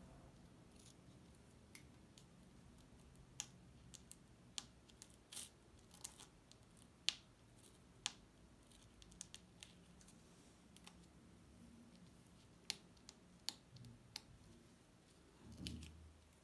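Faint, irregular clicks and ticks of fingers and a pin tip working on an adhesive sand-painting card, picking at and pressing its sections, with a soft thump near the end.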